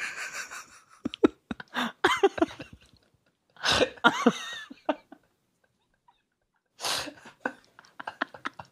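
Two men laughing hard in several bursts, with short pauses between them.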